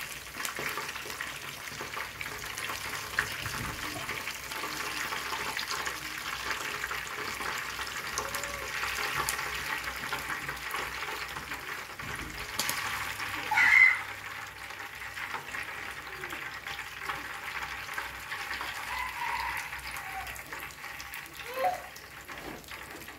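Battered chicken pieces deep-frying in a pan of hot oil, a steady sizzle. A brief louder sound stands out about 14 seconds in, and the sizzle is a little quieter after it.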